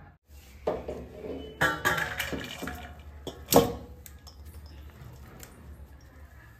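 Cooked biryani being tipped out of an aluminium pot onto a steel plate: the pot clatters and knocks against the plate, with one sharp knock about three and a half seconds in, then a soft rustle of rice sliding out.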